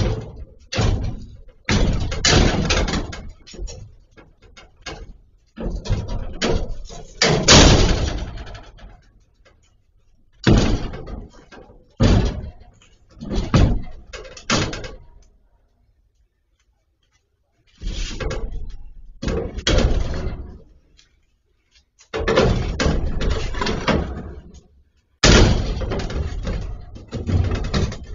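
Heavy repeated blows of a long bar against a brick wall, loud bangs and crashes in clusters, with a short silence a little past midway.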